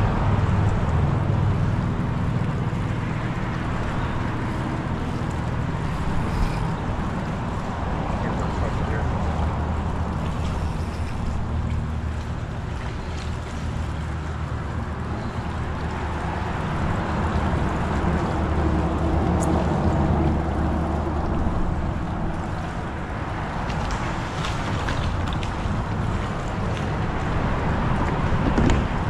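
Steady wind and water noise with a low drone underneath that swells and fades, loudest a little past halfway, and a few light clicks near the end.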